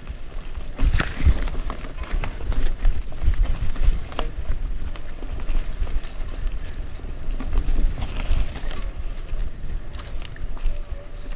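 Mountain bike riding fast down a dirt forest trail: a steady deep rumble of wind buffeting and tyre noise on the camera's microphone, with the bike rattling and a few sharp knocks as it hits bumps.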